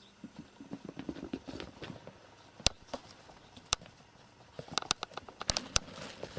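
Cats' claws scratching and scrabbling at a felt boot, a run of soft scratchy rustles, then several sharp separate clicks in the second half.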